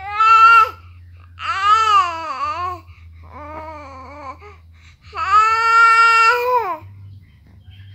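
Infant crying in four separate wails, the third softer and the last the longest, each bending up and down in pitch: a fussy baby.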